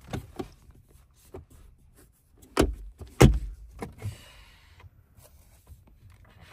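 Handling noises in a car's interior: a gloved hand working the centre console trim, several sharp clicks and thumps with the loudest about three seconds in, then a brief rubbing slide.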